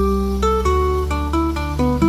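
Background music: a melody of plucked guitar-like notes over a sustained bass.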